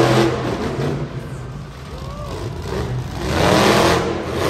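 Monster truck engine revving hard in two loud bursts, one at the start and another about three and a half seconds in, its pitch rising and falling with the throttle.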